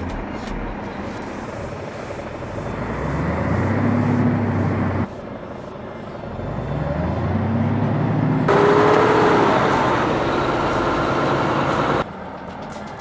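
Heavy vehicle engines revving, rising in pitch twice, in short clips that change abruptly about five, eight and twelve seconds in.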